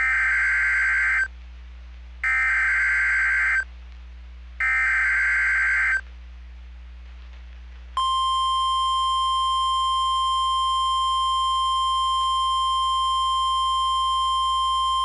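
Emergency Alert System SAME header: three loud, harsh, buzzy digital data bursts, each just over a second long with about a second between them. About eight seconds in, the NOAA Weather Radio 1050 Hz warning alarm tone begins, a steady piercing single tone held on. Together they open a new warning broadcast.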